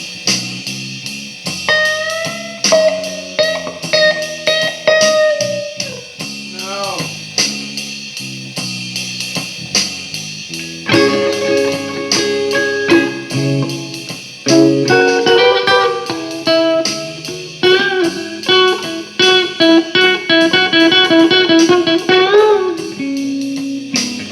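Guitar playing blues lead lines, with single notes and phrases that bend up and down in pitch, over a steady ticking beat.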